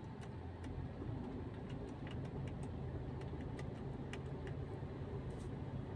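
Faint steady low hum inside a car cabin, with scattered light ticks.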